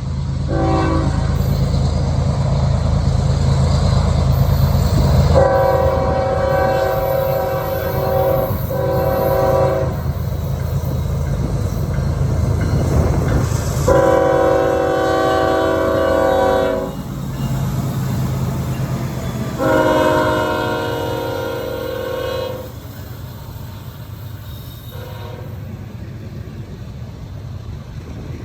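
Diesel freight locomotive horn sounding a series of blasts, several long ones of about three seconds with a few short ones between, over the steady low rumble of the engine as the train passes.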